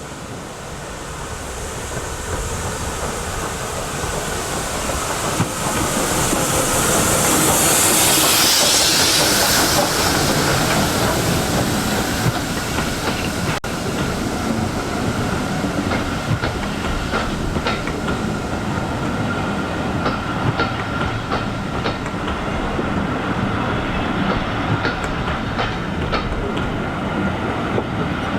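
Steam-hauled passenger train passing. The sound swells over the first several seconds to a loud hiss about eight seconds in, then the carriages' wheels clatter over rail joints in a steady run of clicks.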